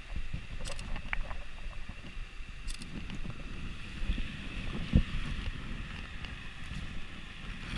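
Shallow stream water running and lapping, with wind rumbling on the microphone, a few faint clicks, and a single sharp knock about five seconds in.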